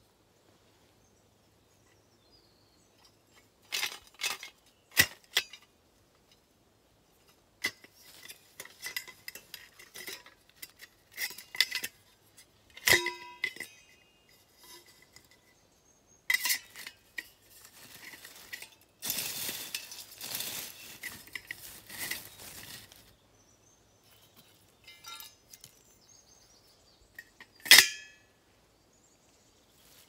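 Metal parts of a stainless steel wood-gas camping stove clinking and clanking as they are handled and fitted together, in scattered knocks, some ringing briefly. A longer stretch of scraping and rustling comes about two-thirds of the way through.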